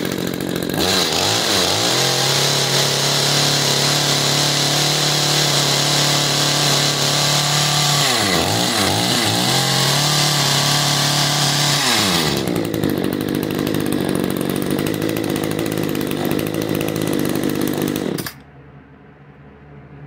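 Echo HC2020 hedge trimmer's two-stroke engine revved up from idle and held at high speed. The throttle is let off and opened again about eight seconds in, the engine drops back to idle near twelve seconds, and it cuts off shortly before the end. It now runs freely, its carbon-clogged muffler and exhaust burned out.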